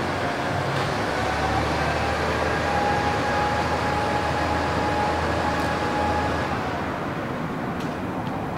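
KiHa 40 diesel railcar running, a steady low engine hum with a faint whine above it, both easing off about seven seconds in.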